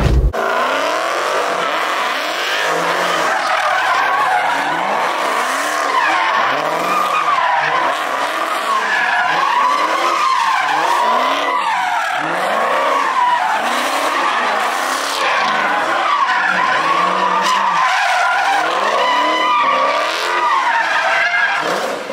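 Muscle cars drifting and doing donuts: the engine revs rise and fall over and over as the throttle is worked, under a continuous wavering squeal of spinning rear tyres.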